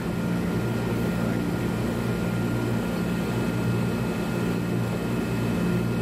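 Carrier rooftop HVAC unit running: a steady electrical hum from the compressor with the outdoor fan running.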